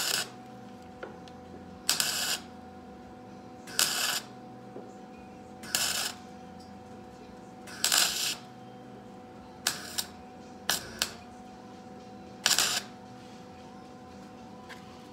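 MIG welder laying short tack welds on sheet-steel body panel: about eight brief crackling bursts, roughly two seconds apart, the later ones shorter, over a faint steady hum.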